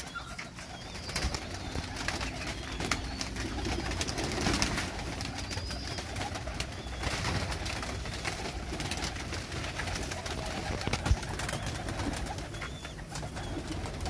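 A flock of domestic pigeons cooing and flapping as they crowd in to feed on scattered grain, with frequent short wing claps and flutters.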